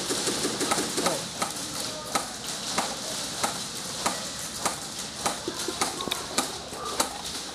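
Airsoft guns firing single shots: sharp snaps at a steady pace of about one every half second, over a constant hiss.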